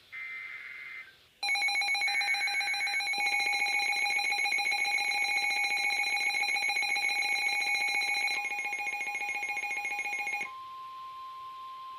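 Emergency Alert System tones. First comes a short screechy burst of digital header data. About a second and a half in, a loud, rapidly pulsing, ringing alert tone starts and runs for about nine seconds. It then gives way to a single steady high tone, the 1050 Hz National Weather Service warning tone.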